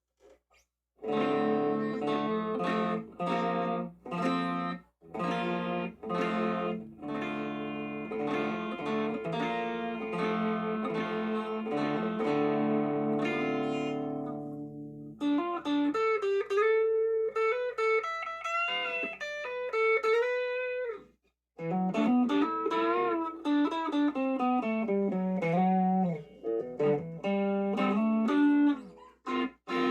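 Electric guitar on its middle pickup played through a Donner Dumbbell Drive overdrive pedal into a Spark amp. Chords picked in a repeating rhythm for about the first half, then single-note lead lines with string bends, broken by a short pause about two-thirds through.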